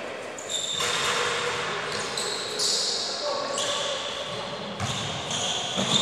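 Indoor futsal play echoing in a large sports hall: several high, drawn-out squeaks from players' shoes on the court floor, the ball being kicked and bouncing, with a sharp knock near the end, and players' voices calling out.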